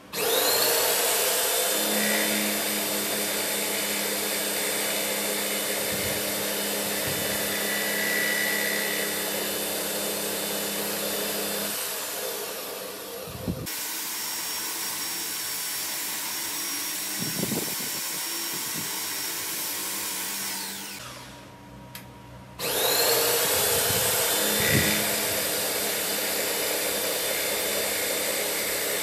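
High-speed machine spindle motor starting with a rising whine, then running steadily with a loud whining hiss. About 21 s in it winds down and stops briefly, then starts up again with the same rising whine about a second and a half later.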